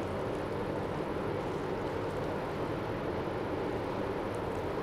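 Steady low drone of a large container ship passing, its engine and machinery running with faint steady low tones under an even rumble.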